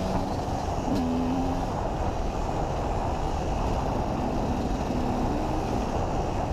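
KTM 250 EXC enduro motorcycle engine running under way, heard through heavy wind rush on a helmet-mounted camera. The engine's note shows through the wind about a second in and again from about four seconds.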